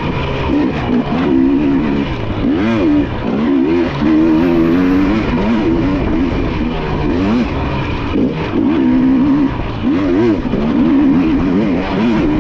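Dirt bike engine revving hard under constant throttle changes, its pitch climbing and dropping again and again.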